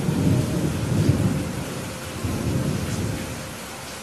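Steady rain hiss with rolling thunder. The rumble swells twice and dies away near the end.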